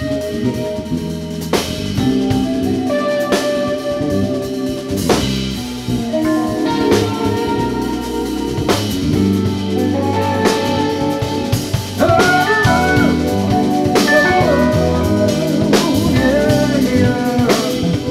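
Instrumental jazz-fusion band playing live: electric guitar, keyboards, electric bass and drum kit. About twelve seconds in, a lead line with bends and vibrato comes in and the music gets louder.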